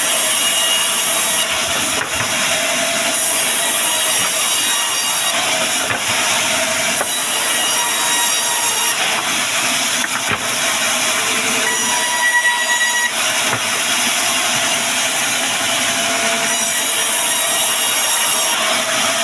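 Band sawmill cutting through timber: a steady, continuous sawing noise with a faint whine.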